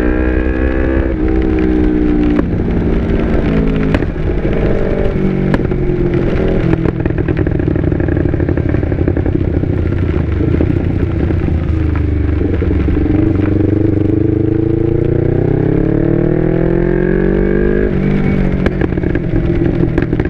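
Yamaha R25 parallel-twin engine through an Akrapovic exhaust, accelerating hard through three quick upshifts, each a climb in revs cut short by a drop in pitch. Then it runs lower and rougher for a while before a long, smooth rise in revs and another shift near the end.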